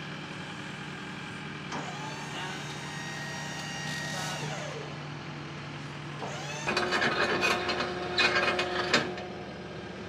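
Skid steer engine running steadily, then getting louder and rougher about two-thirds of the way in as the machine works, while it sets down a heavy crate.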